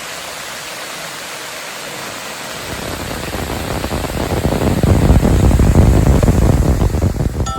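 Rushing waterfall. The steady hiss of falling water grows louder and deeper from about three seconds in, then cuts off at the end.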